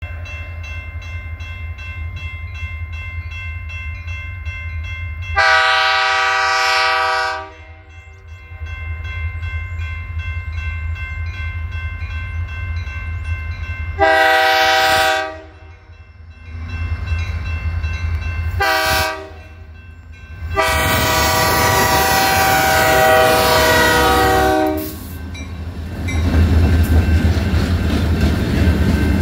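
Grade-crossing horn signal from the lead EMD SD40-2 diesel locomotive: two long blasts, a short one, then a final long blast that falls in pitch as it comes past. After that the locomotives run by close over the crossing, their engines and wheels making a loud steady rush and rumble.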